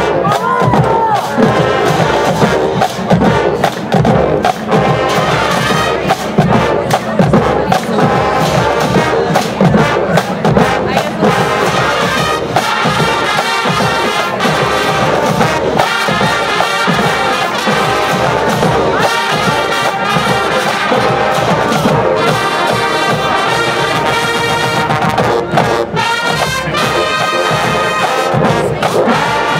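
Marching band playing loudly, with trumpets and trombones carrying the tune over a steady beat of drums.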